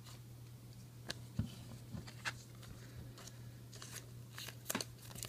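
Trading cards being handled and flipped through by hand: a scatter of soft clicks and rustles of card stock, denser near the end, over a low steady hum.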